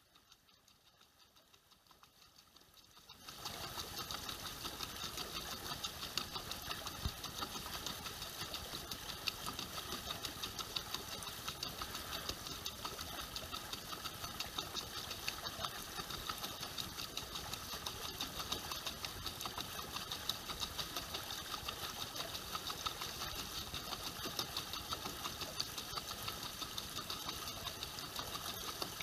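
A small motor starts up about three seconds in and runs steadily with a fast, even whirring rhythm.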